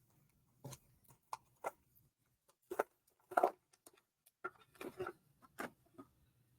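Trading cards and their packaging being handled: about a dozen faint, short clicks and rustles at irregular intervals.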